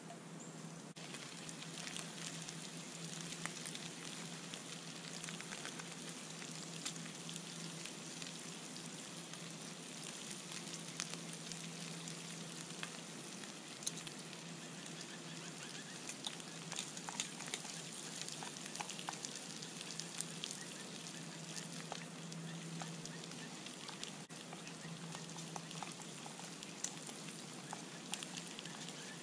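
Meat frying in a small skillet over a wood-burning can stove: a steady sizzle scattered with small crackles and pops.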